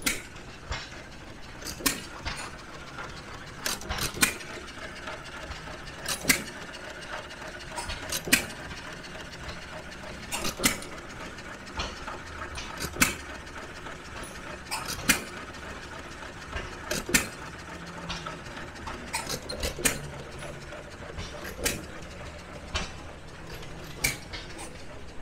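Old single-cylinder stationary gas engine running hit-and-miss: a sharp pop each time it fires, about every two seconds, with lighter mechanical clicking between the firings.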